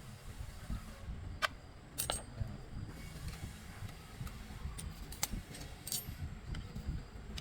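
Metal tools and machine parts clinking: about five sharp, briefly ringing clinks over a low, uneven rumble.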